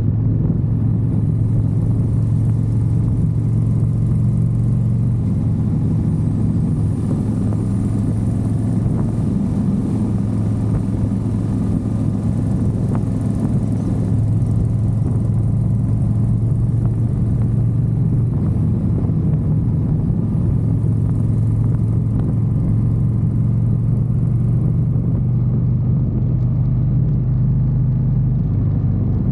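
Motorcycle engine running at a steady cruising speed, with road and wind noise.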